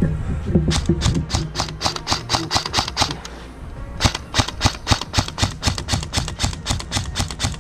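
Airsoft gunfire: rapid sharp clicks, about seven a second, in a long string that pauses briefly about three seconds in, then starts again and keeps going.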